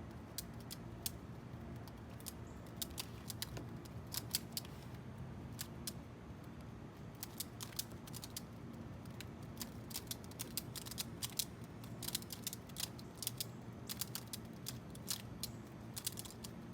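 Plastic Skewb twisty puzzle being turned rapidly during a timed solve: quick, irregular runs of sharp clicks as its corner pieces snap through each turn, with a short lull about five seconds in.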